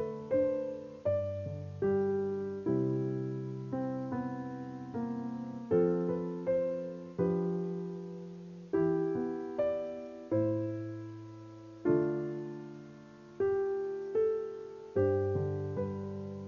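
Background piano music: slow, gentle chords struck about once a second, each ringing out and fading before the next.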